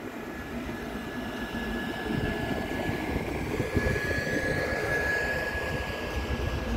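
NMBS M6 double-deck push-pull train passing close by: rumble and clatter of the wheels on the rails, growing louder, with a steady high whine that is strongest about five seconds in.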